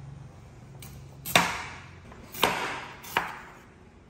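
Chef's knife cutting the rind off a pumpkin chunk: three downward strokes about a second apart, each ending in a sharp knock on an end-grain wooden cutting board.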